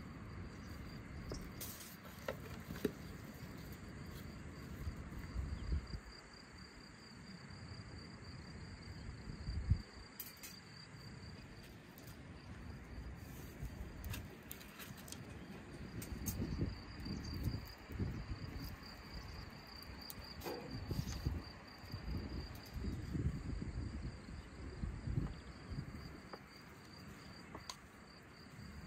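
Insects chirping steadily in a continuous high-pitched pulsing trill, with soft low thumps and rustles underneath.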